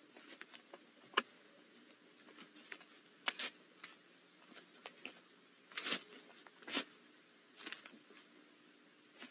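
Owl shifting on the wood-shaving floor of a nest box: faint, scattered scratches and rustles, with a sharp click about a second in and longer rustles later.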